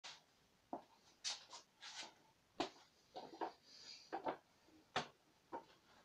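Irregular hard knocks and scraping clacks, about ten of them, from a rola bola board rocking on its roller cylinder on a hard floor. Two sharper knocks stand out, one about halfway through and one near the end.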